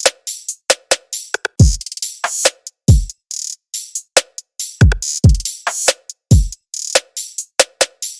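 Looped drum-machine beat: deep kick drums that drop in pitch, sharp snare hits and bright hi-hats, with the same short pattern repeating about every three and a half seconds.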